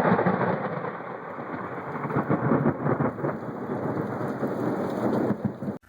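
Thunder rolling and crackling over falling rain. It is loudest at the start, ebbs, swells again, then cuts off abruptly near the end.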